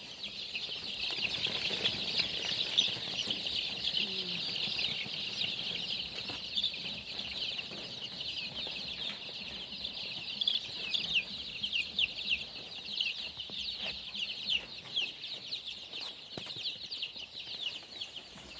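A large brood of young chicks peeping together: a dense, steady chorus of short, high, downward-sliding cheeps overlapping without a break.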